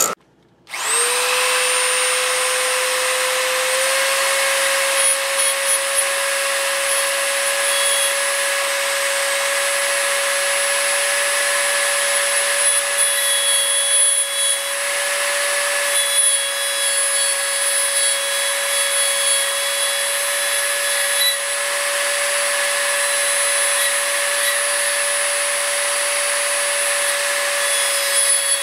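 Dremel rotary tool with an abrasive cutoff wheel spinning up about a second in, then running with a steady high whine while grinding into a steel scratch-stock cutter blank, with a gritty grinding hiss from the contact.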